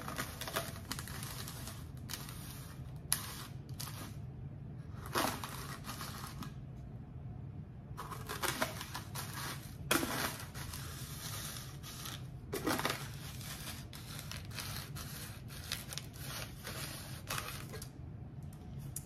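The lemon-wetted rim of a drinking glass being pressed and twisted into coarse salt on a disposable plate: scattered gritty scraping and crunching, with a few louder scrapes, over a low steady hum.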